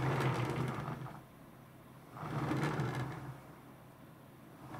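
A plastic turntable rumbling and scraping as it is turned by hand in short pushes, twice and starting a third near the end, about two seconds apart.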